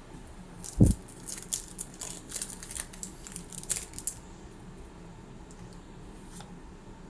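Foil booster pack wrapper crinkling and tearing as a trading-card pack is opened and handled, in a run of sharp crackles that stops about four seconds in. A single low thump comes just under a second in.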